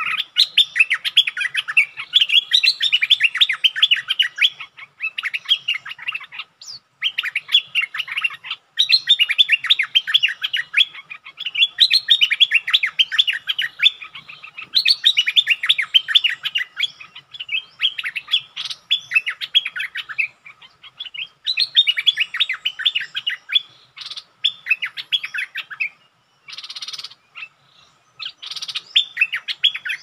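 Bulbul song: quick, chattering notes run together into phrases of a second or more, repeated over and over with brief pauses, and a few harsher, rougher calls near the end.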